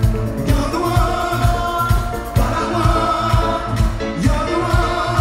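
Live band playing a song with singers, over a steady kick-drum beat about twice a second.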